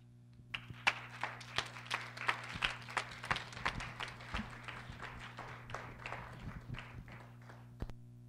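Audience applauding, starting about half a second in and fading out over several seconds, with a last lone clap near the end.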